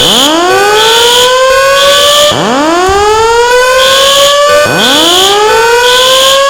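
Building fire alarm sounding its evacuation signal: a rising whoop tone that sweeps up about every two seconds, together with high-pitched beeps in groups of three followed by a pause, the temporal-three evacuation pattern.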